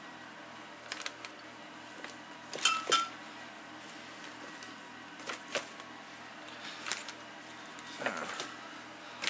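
Scattered light knocks, clinks and rustles of grocery packets and containers being handled in a scooter's under-seat storage compartment, the loudest pair of knocks about three seconds in, over a faint steady hum.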